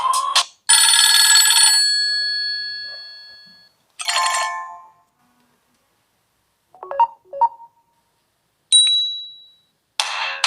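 Nokia Lumia 925 alert tones played one after another, each once and with silence between them. After the tail of a melodic ringtone come a long ringing chime that fades slowly, a shorter chime, two quick blips and a single high ping. The next melodic ringtone starts near the end.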